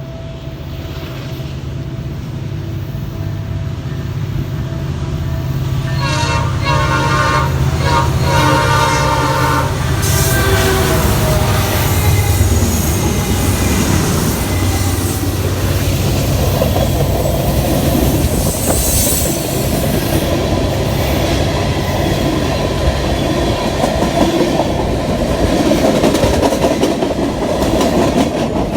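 A CN diesel freight locomotive approaches with a low engine rumble. About six seconds in it sounds its fouled Nathan P5 air horn in several blasts lasting about four seconds. Then the locomotive passes and freight cars roll by with a steady clickety-clack.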